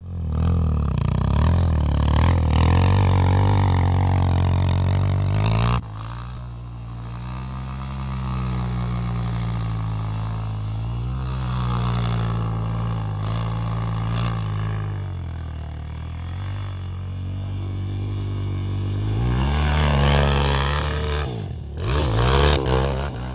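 ATV engines running and revving, their pitch rising and falling as the quads are ridden hard, with an abrupt change in sound about six seconds in and a strong rev near the end.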